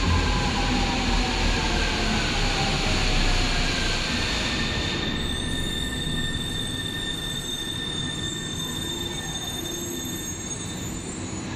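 AnsaldoBreda–Hitachi MAAB Series 5500 metro train pulling into the platform and braking to a stop. Its running noise fades and a whine falls in pitch as it slows, with steady high whistling tones from about five seconds in.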